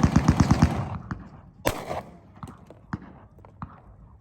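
Range gunfire: a rapid, even string of gunshots, about nine a second, ending just under a second in. A single shot follows a little later, then a few fainter, more distant shots.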